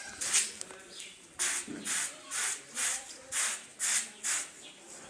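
Wet carpet being scrubbed by hand, in even back-and-forth strokes about two a second.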